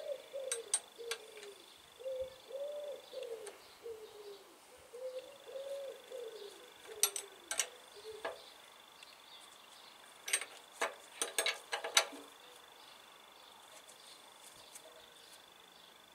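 Spanner and Allen key working the decompressor lock nut on a Petter PAZ1 engine's cylinder head as it is locked up: scattered sharp metal clicks, bunched about halfway and again about three quarters through. A soft wavering tone runs under the first half.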